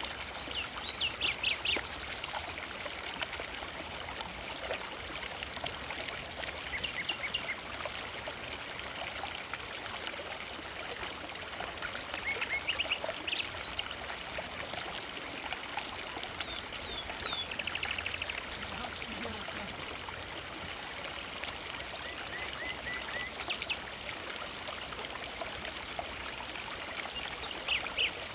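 Forest river flowing with a steady rush of water, with short high bird chirps and trills breaking in now and then.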